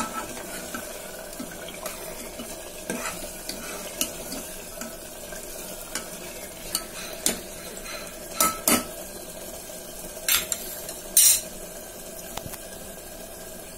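Onion-tomato curry masala sizzling as it fries in a pressure cooker, stirred with a steel ladle that scrapes and clinks against the metal pot several times, the loudest knocks a little past the middle and near the end.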